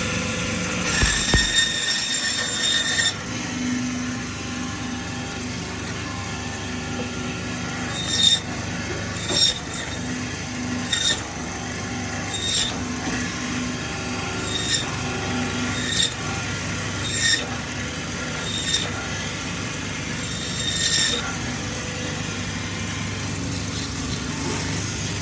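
Meat bandsaw running steadily, its blade cutting a rack of lamb into back chops: a loud high ringing near the start, then a run of about nine short high screeches, one every second or two, as the blade passes through the bones of each chop.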